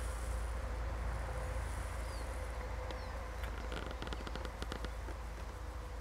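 Grasshoppers stridulating: a high, steady buzz that fades out in the first second or two, followed by a run of quick ticks a little past halfway, over a steady low rumble.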